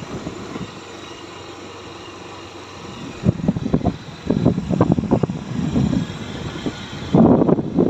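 Motorcycle on the move, its engine running under gusty wind buffeting on the microphone that starts about three seconds in, after a steadier, quieter rumble.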